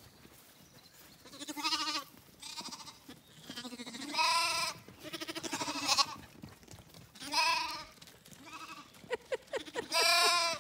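Zwartbles lambs bleating, a run of separate calls with a few fainter ones between, some of them quavering.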